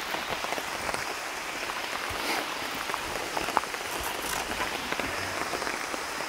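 Steady rain falling on rainforest foliage, with scattered sharp drops ticking through it.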